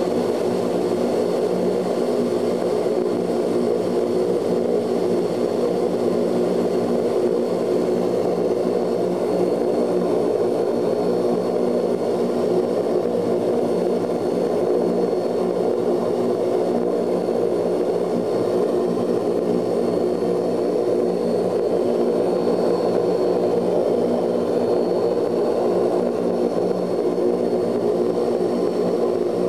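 Ilyushin Il-18's four Ivchenko AI-20 turboprop engines running steadily while the aircraft taxis, heard from inside the cabin: an even drone with several held low tones and a thin high whine.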